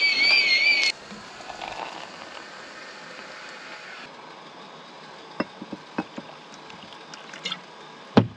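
Kettle whistling at the boil, a steady, slightly wavering whistle that cuts off sharply about a second in. A faint hiss follows, with a few light clicks and one louder knock near the end.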